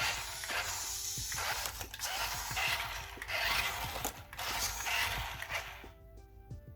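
Small electric motor and plastic gearbox of a cheap toy 4x4 RC rock crawler whirring in stop-start bursts as it drives at its single fixed speed. The motor noise stops near the end and music comes in.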